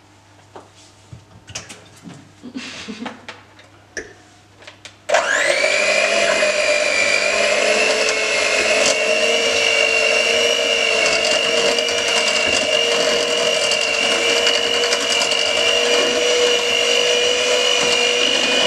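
A few light clicks and knocks, then about five seconds in an electric hand mixer switches on and runs steadily with a whine, its beaters mixing margarine and eggs into a batter.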